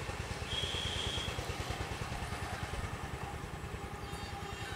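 A small engine running steadily nearby with a rapid, even low putter, with a short high whistle about half a second in.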